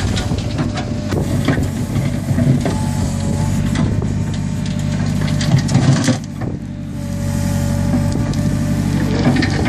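JCB backhoe loader's diesel engine running under load with a steady whine, as the backhoe bucket digs a ditch through stony ground and stones clatter and scrape. The engine noise dips briefly about six seconds in, then picks up again.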